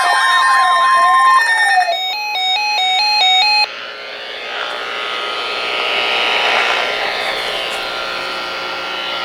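Several weather radio alert alarms sounding over one another: electronic beeping patterns, a warbling siren-like sweep and a steady tone, all cutting off abruptly about four seconds in. A steady rushing noise follows.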